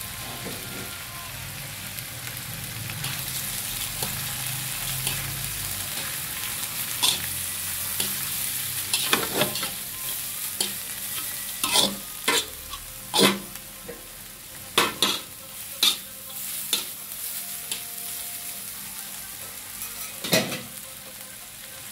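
Noodles stir-frying in a hot wok: a steady sizzle, with a series of sharp knocks and scrapes as they are stirred and tossed in the pan, mostly in the second half.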